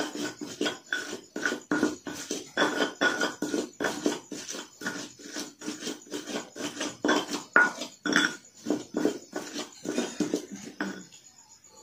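Ulekan pestle pounding and grinding in a cobek mortar, mashing cooked snails into chilli spice paste, with quick rhythmic strokes of about three a second that stop near the end.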